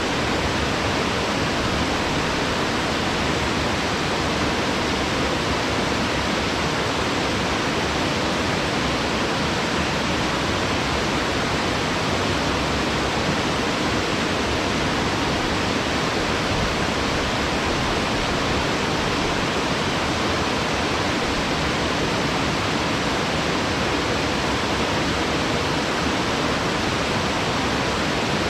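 Waterfall plunging into a wide plunge pool, a steady, unbroken rush of falling water.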